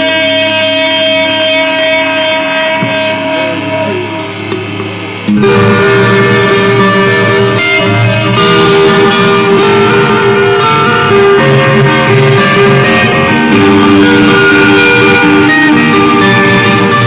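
Live band playing: held electric guitar notes ring and slowly fade, then about five seconds in the full band comes in at once, much louder.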